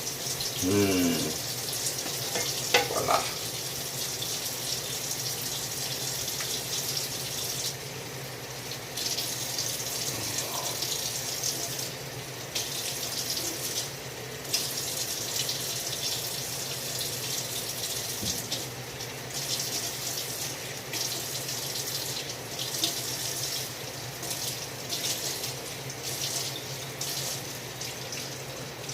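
Water running from a tap into a sink, cut off briefly several times along the way.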